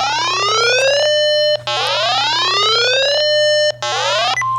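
Electronic alert tone signalling an emergency warning broadcast: a buzzy synthesized sweep rises in pitch and levels off into a held tone, twice, then a shorter third sweep, with a steady single-pitch beep starting near the end.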